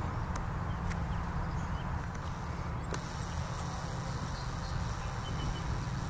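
Steady outdoor ambience dominated by a constant low rumble, with a few faint clicks in the first three seconds.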